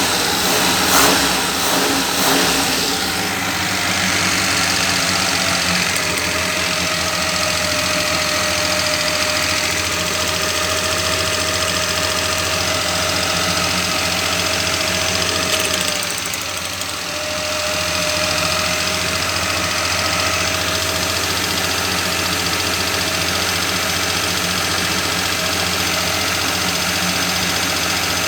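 Car engine idling steadily, with a thin steady whine over it from about six seconds in that briefly drops away about halfway through.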